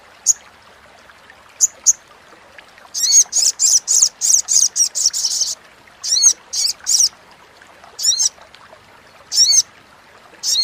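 Olive-backed sunbird (sogon) giving its crecetan chatter: sharp, high chirps, then a fast run of chattering notes starting about three seconds in and lasting a couple of seconds, followed by further chirps in quick groups of two or three.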